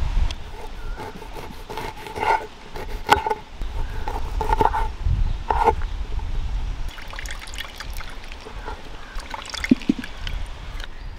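Wet squishing and short clicks of hand food preparation: boiled potatoes mashed in a steel pan, then lemon halves pressed in a metal hand-held lemon squeezer with juice dripping into a steel pot.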